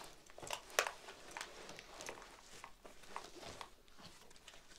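Soft rustling and light knocks of a nylon plate carrier with plates inside being pulled on over the head and settled onto the torso, with one sharper knock about a second in.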